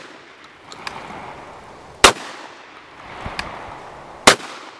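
Beretta A300 Ultima Patrol semi-automatic 12-gauge shotgun fired twice, about two seconds apart, each sharp report trailing off into an echo. A few faint clicks come between the shots.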